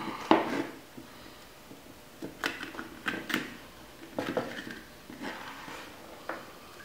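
Light clicks and knocks of a small wooden electronics enclosure being handled while a circuit board (a stepper motor shield) is pressed down onto an Arduino's header pins, with a sharper click near the start and scattered taps after.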